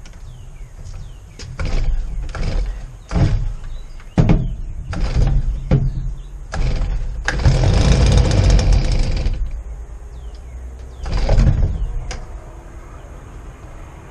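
Stihl handheld yard blower being pull-started cold, with old gas in the tank after sitting all winter. A run of quick recoil-cord pulls, then its two-stroke engine runs for about two seconds in the middle and cuts out, and runs briefly again near the end.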